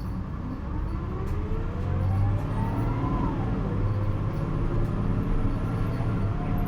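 Isuzu Erga city bus's diesel engine revving hard under acceleration in power mode, heard from inside the bus. A whine climbs in pitch, drops about three seconds in as the bus shifts up, then climbs again over a steady low rumble.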